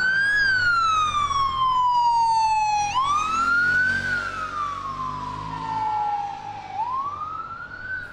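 Police motorcycle siren wailing: each cycle sweeps quickly up in pitch and then glides slowly back down, repeating about every three to four seconds.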